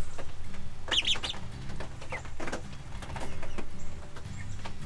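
Young chicks peeping, a quick cluster of high chirps about a second in and a few scattered ones after, over a steady low hum.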